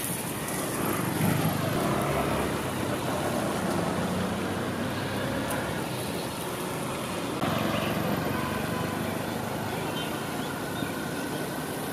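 Street traffic on a wet road: cars and auto-rickshaws passing, with engine noise and the hiss of tyres on the wet surface. There is an abrupt jump in the sound about seven seconds in.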